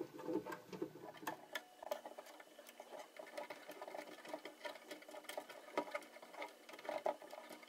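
Ukulele tuner being turned by hand to wind a new string onto its post: quick, irregular small clicks and ticks from the tuner and the string as it tightens.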